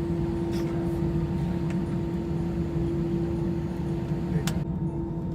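Steady cabin noise of an Airbus A319 taxiing: a constant hum with one steady tone over an even low rumble, with a faint click about four and a half seconds in.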